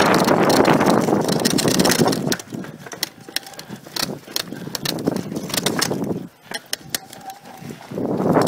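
Mountain bike riding down a dirt forest trail, heard from a camera on its handlebar: a loud rush of wind and tyre rumble, with sharp rattling clicks from the bike over bumps. The rush drops away about two seconds in, leaving mostly the clicks and rattles, and comes back near the end.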